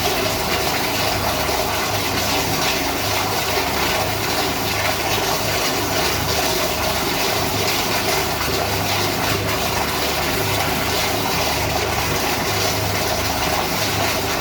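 Toilet flushing without stopping: a steady rush of water into the bowl that does not shut off, with a low hum that comes and goes underneath.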